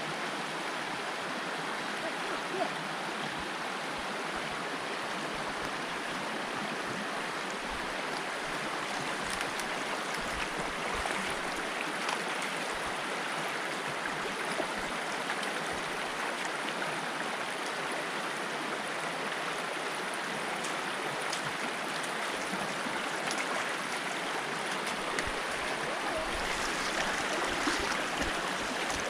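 Creek water rushing steadily over rocks and little waterfalls, an even, unbroken sound of flowing water.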